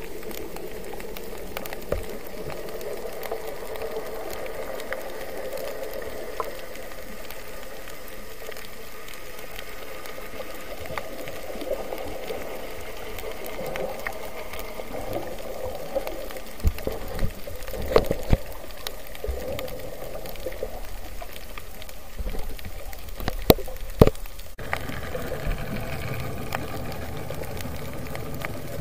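Muffled underwater sound picked up by an action camera inside its waterproof housing: a steady watery hiss and hum with scattered sharp clicks and knocks, the loudest a few short knocks between about 18 and 24 seconds in, and a lower rumble that comes in near the end.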